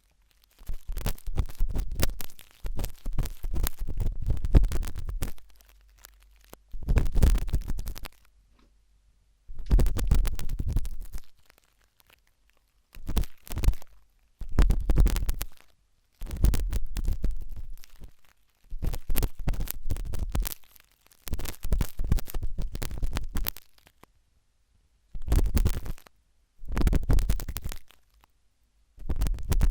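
Sharp toothpick scraping and scratching in an ear close to the microphone: bursts of rapid scratchy clicking, each one to two seconds long, broken by short silences.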